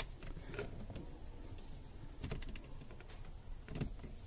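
Small plastic clicks and taps of a fuse puller being handled and pressed back into a car's cabin fuse box: a few scattered clicks, the loudest near the end.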